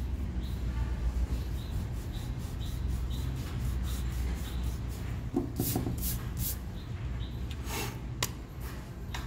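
Eraser rubbing back and forth on paper, wiping out pencil sketch lines, with a few louder scrubbing strokes in the second half, under a steady low hum.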